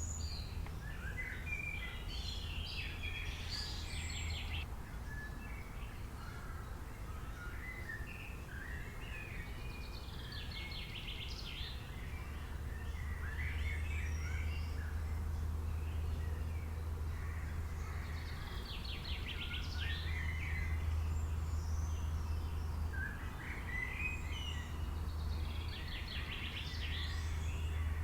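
Several wild birds chirping and singing in the forest, in overlapping bursts of short calls and trills every few seconds, over a steady low rumble.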